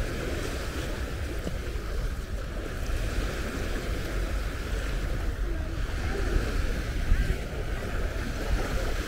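Small waves washing up on a sand-and-pebble shore in a steady wash, with wind rumbling on the microphone and faint far-off voices of beachgoers.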